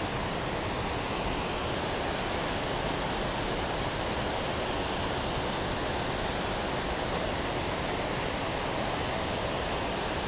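Steady rush of running creek water over rocks, an even, unchanging hiss.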